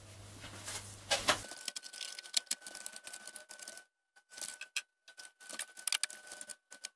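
Scattered light clicks and clinks of metal hand tools being picked up and moved about, irregular and quiet, with a faint steady high-pitched tone starting about a second and a half in.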